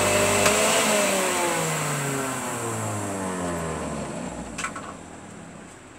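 Loyola PJ-437 juice extractor's motor running, then switched off about a second in and winding down, its whine falling steadily in pitch and fading over several seconds. A couple of light clicks near the end.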